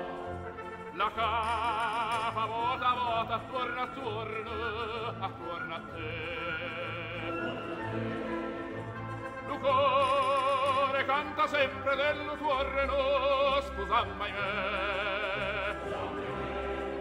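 Opera music: orchestra and singing with strong vibrato, swelling louder about a second in and again about ten seconds in.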